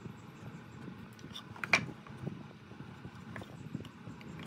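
Pine boards handled and shifted on a concrete floor, with light scuffs and ticks and one sharp wooden knock a little under two seconds in.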